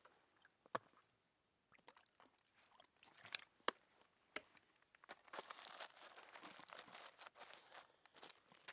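Tin foil being crinkled and folded, faint, with a few sharp clicks early on and a denser stretch of crinkling about five seconds in.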